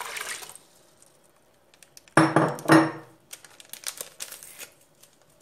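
Water pouring from a glass jug into a glass bowl stops about half a second in. Then come two loud, ringing glass knocks about half a second apart as the empty glass jug is set down, followed by a few light clicks.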